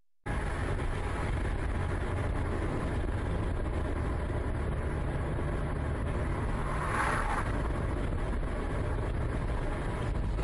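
Steady engine and road rumble of a car driving at highway speed, heard from inside the car, cutting in abruptly just after the start. A brief swell of noise comes about seven seconds in.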